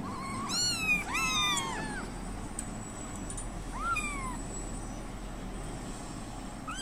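Young kittens mewing for milk while being bottle-fed: high-pitched mews that rise then fall, three in quick succession in the first two seconds and another about four seconds in.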